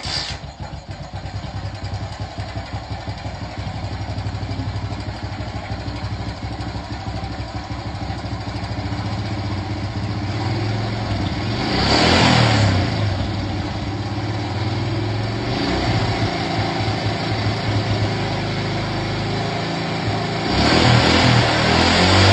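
Small Honda engine catching right at the start and then running with a fast, even pulse, revved up briefly about halfway through and again near the end.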